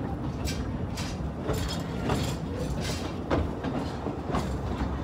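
Narrow-gauge steam train moving off, heard from an open coach: the locomotive Sir Haydn's exhaust beats come as sharp hissing beats about every half second, over a steady rumble and clatter of the coach wheels on the track.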